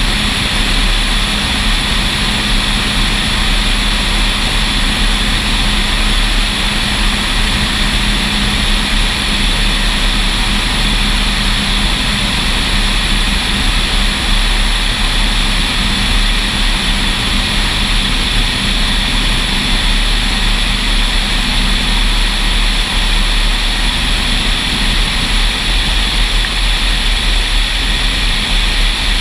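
Cessna 172 SuperHawk's piston engine and propeller running steadily in flight, mixed with a heavy rush of passing air. A low engine tone weakens a little about halfway through.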